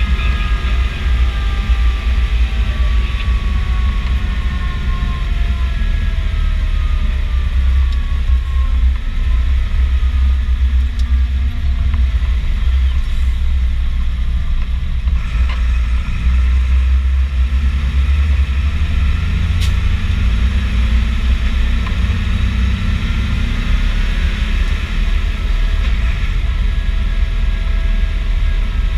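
Fendt 512 TurboShift tractor driving at steady road speed, heard from inside its cab: a continuous deep engine rumble. A faint whine slowly falls in pitch over the first several seconds and rises again near the end.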